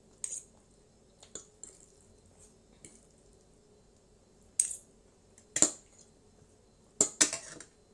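Metal fork and spoon clinking and scraping against a plate in scattered short, sharp clicks, the loudest about halfway through and near the end.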